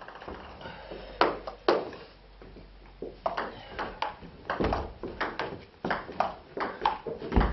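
Table tennis rally: the ball clicking off the bats and the table. Two hits come in the first two seconds, then a quieter gap, then a quick, steady run of bat and table hits from about three seconds in.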